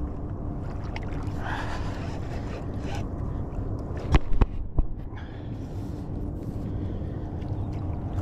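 Rod-and-reel handling noise as a hooked fish is set and reeled in on a Shimano Curado baitcasting reel: a steady low rumble, with a few sharp knocks a little over four seconds in.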